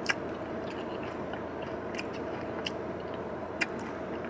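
Close-up chewing of a smoothie bowl with granola: a few short, sharp crunchy clicks spaced irregularly over a steady low hum.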